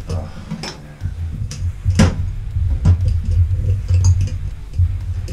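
Brass valve fittings clinking and knocking as they are handled, a series of short sharp metallic taps with the loudest about two seconds in, over a steady low rumble.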